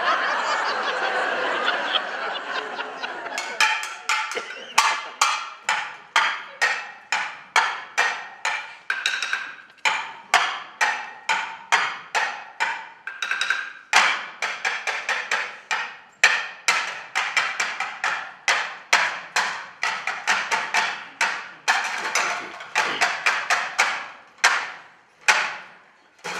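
Table percussion played on kitchenware and desks: pans, plates and lids are struck in a rhythmic pattern of sharp, briefly ringing hits. The strikes begin about three seconds in, come two to three a second, and are grouped into phrases with short breaks.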